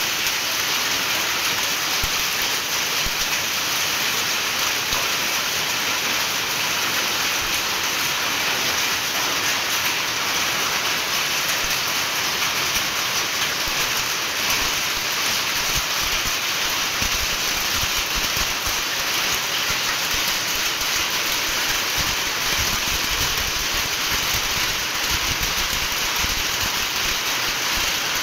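Heavy rain pouring steadily, splashing on a wet paved floor and into the soil of plant pots.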